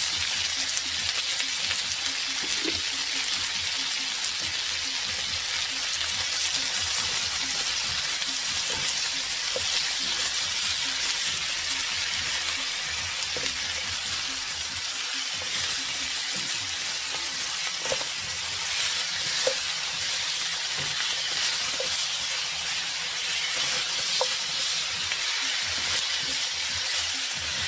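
Sliced sausage, carrots, onion and garlic sizzling in oil in a wok, a steady frying hiss, stirred with a silicone spatula that scrapes and taps against the pan now and then.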